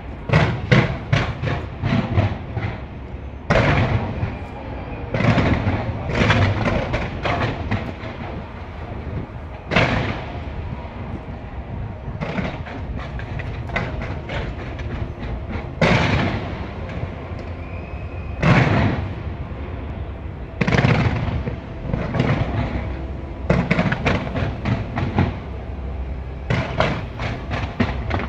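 Skyscraper fireworks display going off in a dense barrage: quick runs of sharp bangs and crackling, with a louder bang every couple of seconds over a continuous low rumble.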